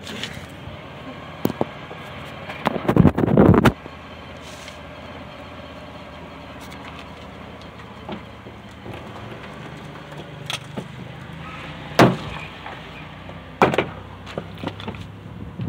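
Plastic car door panel and its trim being handled and pried at: scattered clicks and knocks, a dense cluster of clattering knocks about three seconds in, and single sharp snaps near twelve seconds and again shortly after.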